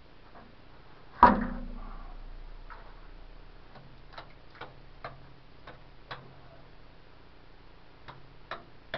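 Rock hammer striking the rock wall of a mine: one hard blow about a second in that dies away slowly, then a string of lighter, uneven taps.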